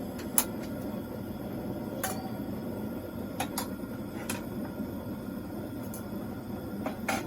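Several short, sharp clinks and knocks of cooking pots and utensils, spread unevenly, over a steady low background noise.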